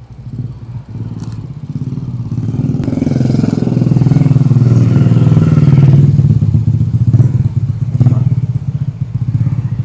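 A motor vehicle's engine running close by on the street, growing louder over the first few seconds, loudest around the middle, then easing off near the end.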